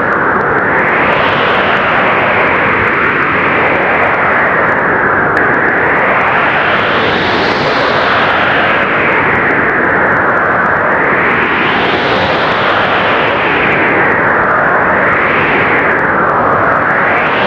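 Strong blizzard wind blowing without a break, a steady rushing noise that swells and eases in slow gusts every few seconds.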